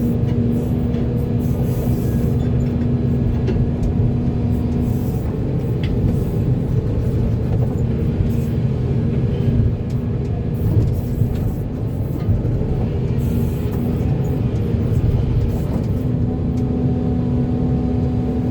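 Volvo EC480D excavator's diesel engine running steadily under work, with a droning tone that fades out and comes back a few times.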